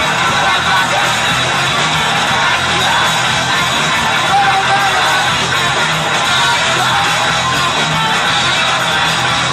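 Rock band playing live at full volume: electric guitars and drums in a dense, unbroken wall of sound, with a vocalist shouting over them.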